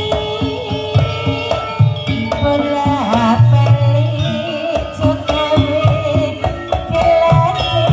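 Loud music playing through a large ground-stacked sound system, with deep bass, repeated drum hits and a wavering melody.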